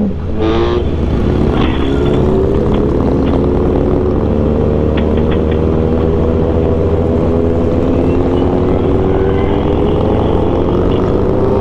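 Sport motorcycle engine heard on board while riding. Its pitch dips briefly at the start, then climbs slowly and steadily as the bike pulls, over a constant low rumble.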